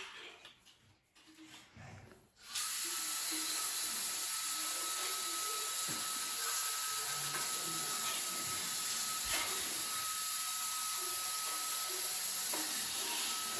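A steady hiss with a faint high whine in it cuts in abruptly a couple of seconds in and runs on evenly, with a few soft knocks underneath.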